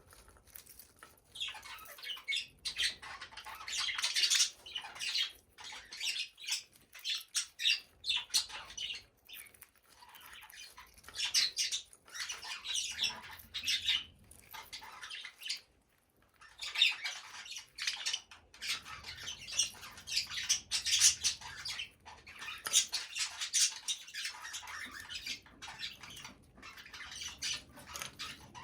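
Budgerigars chattering and squawking in repeated bursts with short pauses between them.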